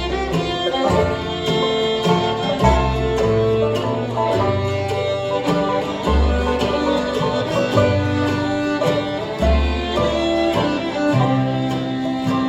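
Bluegrass band playing an instrumental break: banjo, guitar, mandolin and fiddle over bass, with no singing.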